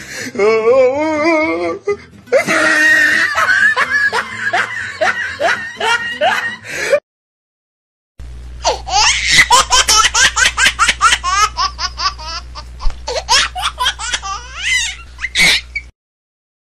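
Laughter sound effects: about seven seconds of pulsing laughter, a second of silence, then another long bout of rapid laughing that cuts off suddenly near the end.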